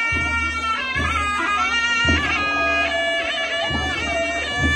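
Sanai (sanahi), the Nepali double-reed pipe, playing a wavering folk melody, with a low drum beating underneath about once a second.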